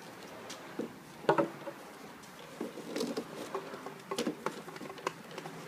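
Swing rope being handled and tugged through a plastic rope fitting: soft rubbing and rustling with scattered small clicks.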